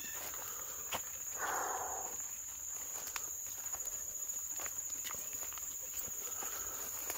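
Footsteps crunching and rustling through leaf litter and brush, with scattered crackles of twigs and a brief louder rustle about a second and a half in. Over it runs a steady, high-pitched drone of insects.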